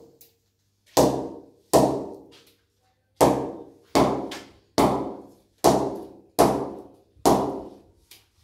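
Butterfly-grade English willow cricket bat blade struck eight times for a ping test, each strike a sharp knock that rings briefly with a clear tone. The bat has a good ping: "so nice sound".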